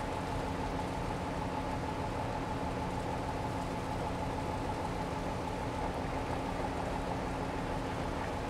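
Engine of a lake sightseeing boat running steadily under way, heard from on board: a constant drone with a steady two-note hum over an even rushing noise.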